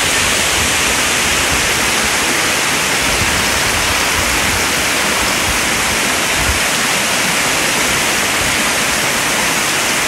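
Waterfall cascading down a rock face: a steady, even rush of falling water.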